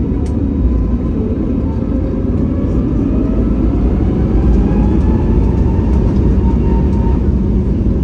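Airbus A321neo's Pratt & Whitney geared turbofan engines running at high power during takeoff, heard inside the cabin: a heavy, steady rumble with a faint whine that slowly rises in pitch.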